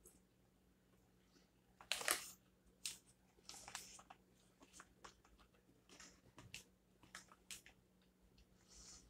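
Plastic bag of frozen seasoned sweet potato fries crinkling as it is picked up and handled. It comes in irregular rustling bursts starting about two seconds in, the first the loudest.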